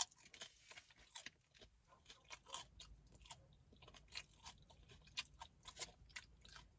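Faint, close chewing of a hard-shell taco: irregular small crunches of the shell between the teeth.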